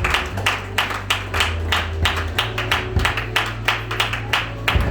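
Congregation clapping together in a steady rhythm, about four to five claps a second, over low sustained bass notes that change pitch a couple of times.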